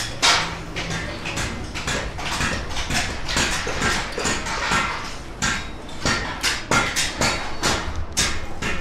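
Rapid, irregular knocks and clatter, several a second, over a steady low rumble.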